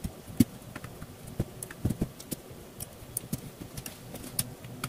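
Irregular small clicks and taps of a Phillips screwdriver working the starter-plate screws of a Tamiya .18 nitro engine, with light knocks as the metal engine is turned in the hands.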